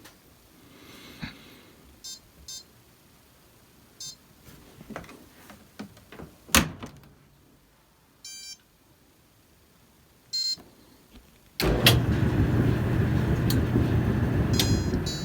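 Maytag washer/dryer control panel beeping at button presses: short separate beeps, one longer, among scattered clicks, one of them loud. About 12 seconds in, the machine starts running with a loud steady rushing sound and a low hum.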